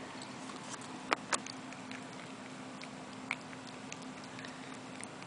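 Boston Terrier puppy eating dry kibble from a bowl: scattered small crunches and clicks, with two sharper clicks about a second in and another just past three seconds.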